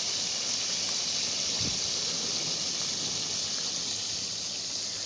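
Chicken pieces sizzling in oil and their own juices in a wok, a steady hiss.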